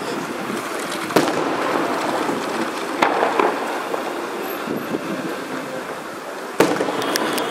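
Fireworks going off: sharp bangs about a second in, at about three seconds and near the end, each with a short echo, over steady background noise.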